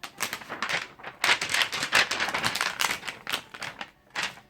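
Dense rustling and crackling, like something crinkly being handled and squeezed, loudest in the middle and stopping a little after four seconds in.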